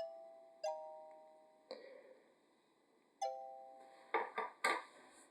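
Soft, sparse background music of chime-like notes that ring and fade, with a few short clicks of small plastic block pieces being handled about four seconds in.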